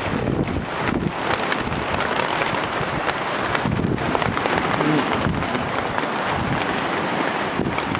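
Steady rain falling, with wind gusting and buffeting the microphone.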